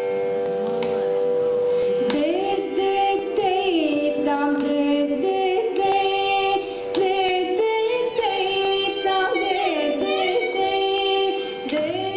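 Carnatic music in raga Hamsadhwani: a steady drone, joined about two seconds in by a melodic line that slides and bends between held notes.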